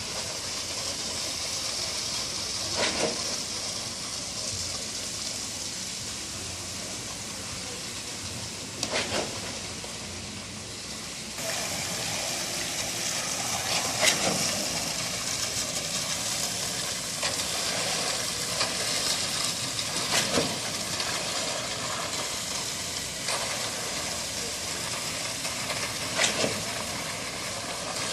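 Steady machinery and site noise with a sharp knock about every six seconds; the background noise steps up a little less than halfway through.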